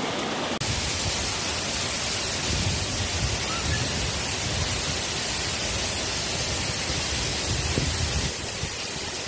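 Waterfall plunging onto rocks: a steady, loud rush of falling water, with a brief dropout about half a second in.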